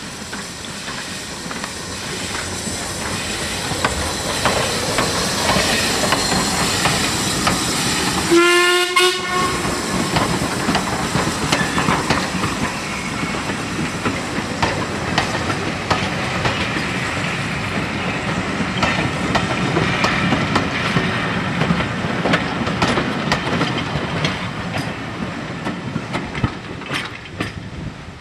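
LMS Ivatt 2-6-2 tank steam locomotive 41241 running by with its train, a steady rumble and clatter of wheels over the rail joints. The sound builds over the first few seconds, a short whistle blast of under a second sounds about eight seconds in, and the clatter eases near the end.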